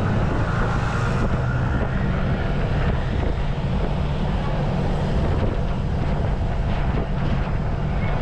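Motorbike engine running steadily while riding, with wind buffeting the microphone.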